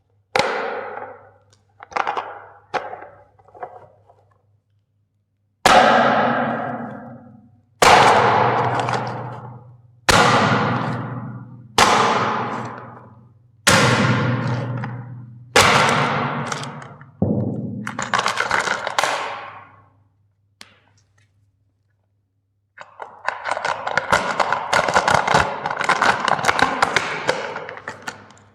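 A hammer striking toys in a series of sharp blows, each ringing out with a long echoing fade: four lighter hits at first, then heavier ones about two seconds apart. Near the end comes about five seconds of dense, continuous crunching.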